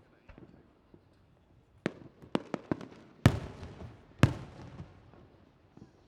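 Aerial fireworks going off: a quick run of sharp cracks about two seconds in, then two big booms about a second apart, each trailing off in a long rumbling echo.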